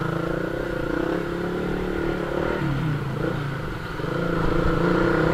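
Motor scooter engine running at low speed. Its note sags about two and a half seconds in, then picks up and gets louder from about four seconds in as the throttle opens.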